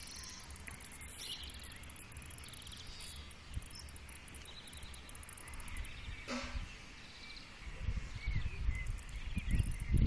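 Cicada song, a high-pitched buzz that is strongest for the first few seconds and then comes and goes, with a few short bird chirps. Low rumbling near the end.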